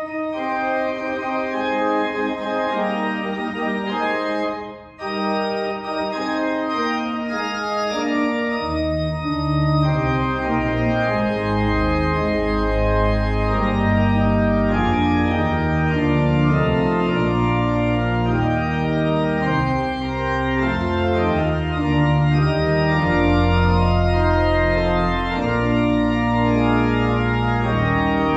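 Organ playing music in sustained chords, with a short break about five seconds in; about nine seconds in, deep bass notes join in under the chords.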